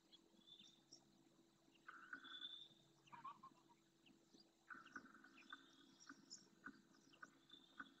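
Faint, distant calls of wetland birds: short scattered high calls, and from about halfway a run of repeated call notes about two to three a second.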